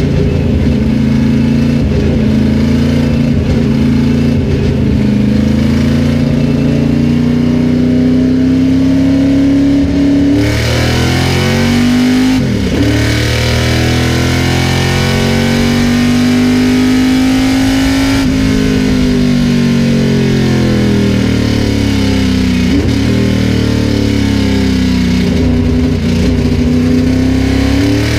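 Greenwood Corvette race car's V8 engine at racing speed, heard from inside the cockpit. The engine note climbs slowly, then turns louder and harsher about ten seconds in. There are brief breaks in the note twice, and the pitch falls and rises again between them as the car comes off and back onto the throttle.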